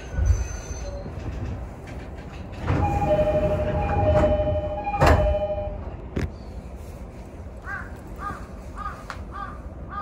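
Sotetsu commuter train, with a thump, then a steady two-pitched tone lasting about three seconds that ends in a sharp clunk. Near the end comes a run of about five short chirps, roughly half a second apart.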